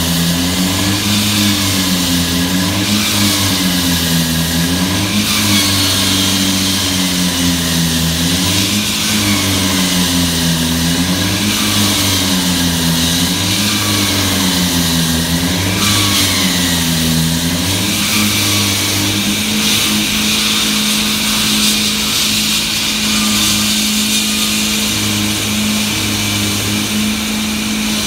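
Engine-driven walk-behind concrete floor saw running as it wet-cuts a reinforced concrete slab. Its engine pitch dips and recovers about every two seconds as the blade loads, then holds steady in the last third.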